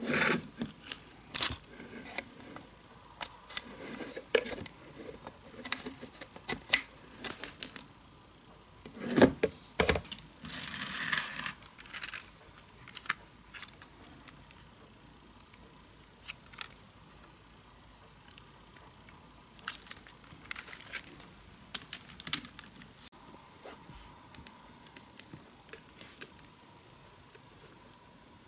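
Hands handling small plastic parts: scattered clicks and rustles from feeder-wire connectors being plugged into a model-railway power pack and from an N-gauge car being picked up, with a busier stretch of rustling and knocks about ten seconds in.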